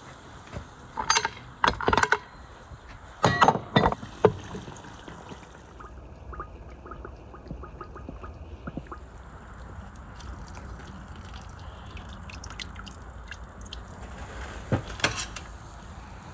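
Metal clanks and knocks from an Afghan pressure cooker and its lid being handled, in a burst over the first few seconds, then soft liquid sounds of broth, with another short clatter near the end.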